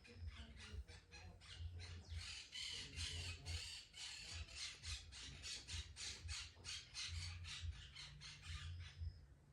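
A cat licking its fur in quick, rasping strokes, about four to five a second, with low bumps underneath, and a faint bird chirp near the end.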